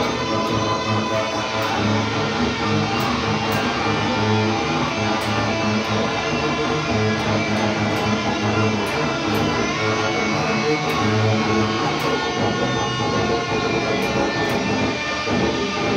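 Improvised instrumental music from an electric guitar and bass guitar duo: held, layered guitar notes over low bass notes.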